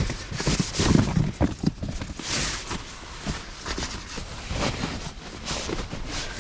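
Irregular crunches and rustles of a person moving about in snow and handling camping gear.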